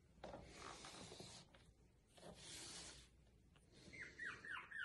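Faint rustling and rubbing of the puppy being handled, then about four seconds in a small puppy starts whimpering in short, high, falling squeaks, about three a second.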